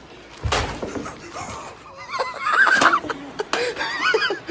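A thump, then high-pitched, wavering vocal squeals and laughter from an excited person.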